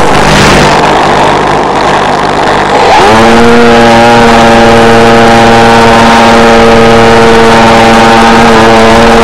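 Model airplane's electric motor and propeller heard through the onboard FPV microphone with a rush of air: the motor's whine is absent at first, spools up about three seconds in, then holds a steady pitch under power.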